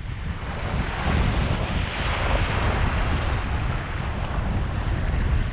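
Small waves washing over shore rocks with a foamy hiss, one swelling about two seconds in, under wind buffeting the microphone.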